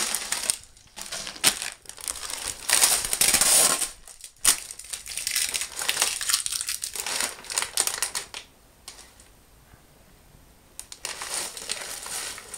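Plastic snack-chip bags crinkling as they are handled, in loud dense bursts, dropping away for a couple of seconds about two-thirds through, then crinkling again near the end.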